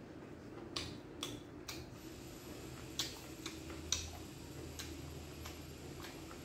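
A person chewing a mouthful of food close to the microphone, with irregular sharp mouth smacks and clicks about one or two a second.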